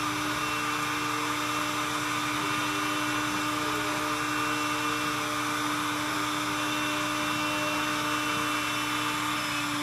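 WS-600 window-cleaning robot running, its suction fan giving a steady, unchanging motor whine with an even hiss as the robot creeps across the glass-like board surface.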